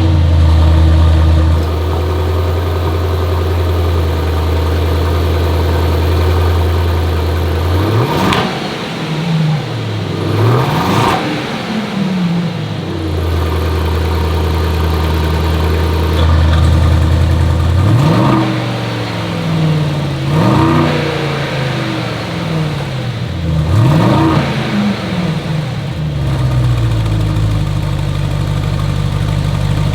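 Mercedes-AMG GLS 63's twin-turbo V8 running just after start-up: it holds a raised idle and is blipped five times, the revs rising sharply and falling back each time, then it settles to a lower idle near the end.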